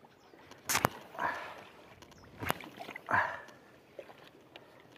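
Two sharp clicks about two seconds apart, each followed by a short swish like water sloshing.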